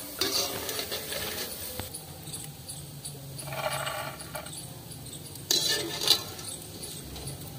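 Bhindi papads frying in hot ghee in a kadhai, a light crackling sizzle, with a metal utensil knocking sharply against the pan twice about six seconds in.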